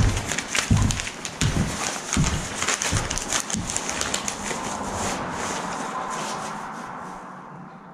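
Footsteps on a wooden plank floor, about one step every 0.7 seconds, with light clicks over them; the steps stop about halfway through and the sound fades away.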